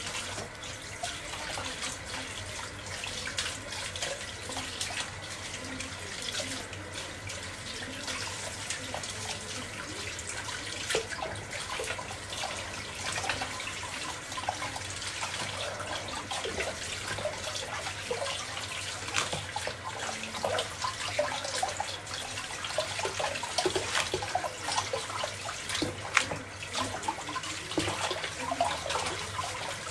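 Kitchen tap running into a sink while lettuce leaves are washed by hand, with irregular splashing of water and leaves being moved about.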